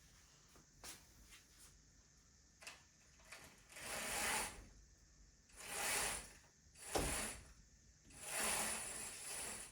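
Curtains being drawn open along their rail: three swishing slides, about four seconds in, about six seconds in and a longer one near the end, with a sharp click between the second and third.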